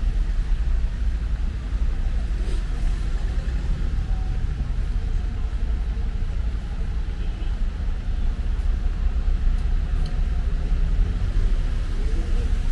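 City street traffic: a steady low rumble of cars.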